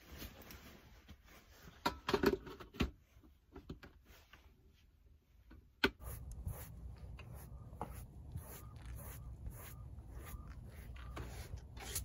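Black plastic carrying case of a portable butane camp stove being closed: a few knocks and clicks of the plastic lid and latch, with a single sharp click about six seconds in. After that a faint low rumble with light, scattered ticks.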